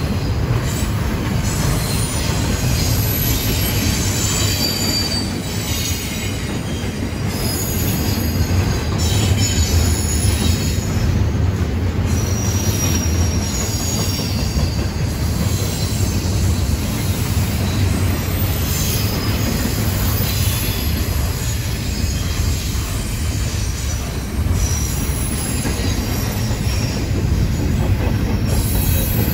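Double-stack intermodal freight train's well cars rolling past: a steady heavy rumble of steel wheels on rail, with faint high-pitched wheel squeal coming and going.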